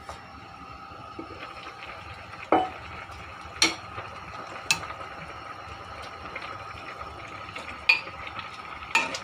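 A metal utensil clinking against a cooking pot about five times, sharp separate knocks while the pot is stirred or handled, over a steady hiss.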